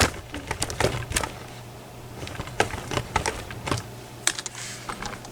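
Irregular sharp clicks and clacks of a padlock and small metal lockpicking tools being handled, coming in scattered clusters over a faint low hum.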